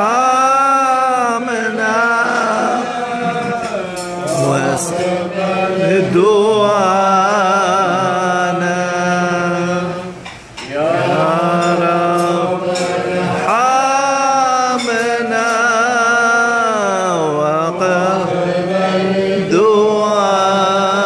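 A man chanting unaccompanied: one voice holding long notes with wavering, melismatic ornaments and slow sweeps in pitch, pausing briefly for breath about ten seconds in.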